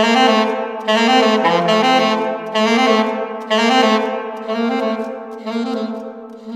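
Saxophone improvising: short bright phrases repeated about once a second over a sustained lower tone, fading away over the last couple of seconds.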